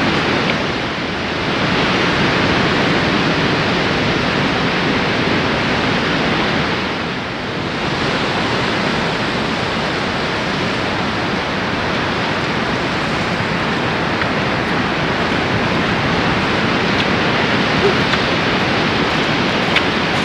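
Ocean surf washing steadily, a loud even rush that eases briefly about a second in and again around seven seconds in.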